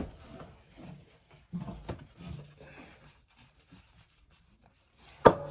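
Quiet handling of seatbelt webbing and hardware: a few soft rustles and taps, then a single sharp click near the end.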